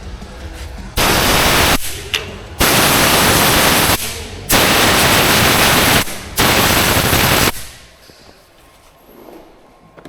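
Four loud blasts of hissing noise, each lasting about a second, that start and stop abruptly with short gaps between them.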